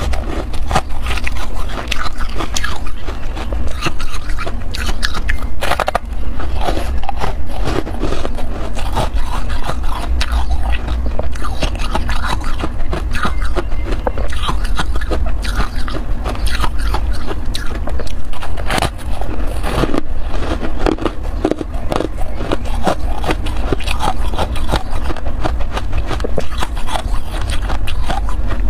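Chunks of freezer frost being bitten and chewed close to the microphone: a dense, continuous run of crunches over a low rumble.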